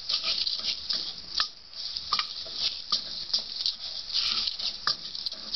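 Wooden spoon stirring rice grains as they toast in a stainless steel pot: a continuous rustling scrape with irregular light knocks of the spoon against the pot.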